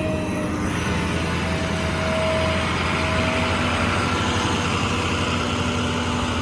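A 6.0 Power Stroke diesel engine in a Ford F550 idling steadily, with a steady hiss joining in about a second in.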